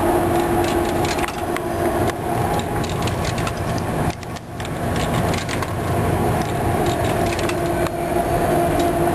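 Steady rumbling background noise with a constant low hum, and scattered light clicks as a payphone's handset and keys are handled.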